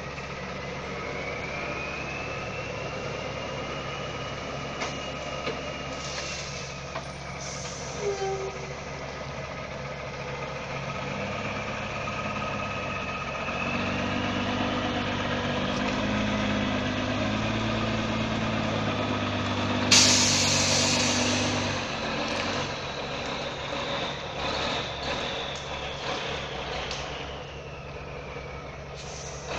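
Diesel engine of a loaded logging truck labouring on a steep dirt-road climb, getting louder about halfway through. About two thirds of the way in, a sudden loud hiss of air brakes cuts in and fades over a couple of seconds.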